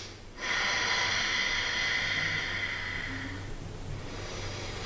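A woman's slow, audible breathing through the nose: one long breath lasting about three seconds, followed by a softer one.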